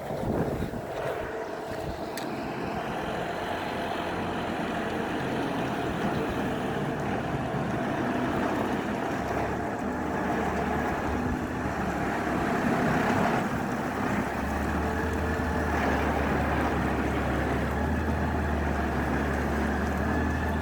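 Farm tractor engine running steadily, its low hum growing stronger about two-thirds of the way through.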